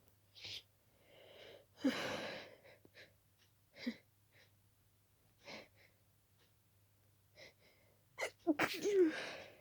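A person's sneezing fit: a loud sneeze about two seconds in and another, louder sneeze near the end, with short sniffs and catching breaths between. The sneezes come from an intensely itchy nose, which the uploader puts down to a dust allergy.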